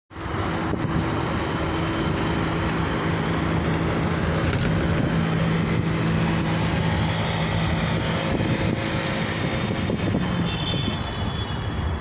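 Engine and road noise of a moving vehicle heard from inside it through an open window: a steady hum over road rumble. The hum fades out about ten and a half seconds in.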